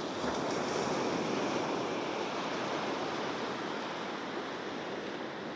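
Sea surf washing on the shore: a steady rush of breaking waves that swells a little about a second in and slowly eases.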